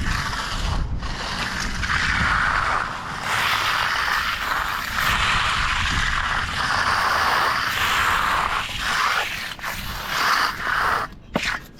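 Scraping of a tool working wet concrete, in long stretches broken by short pauses.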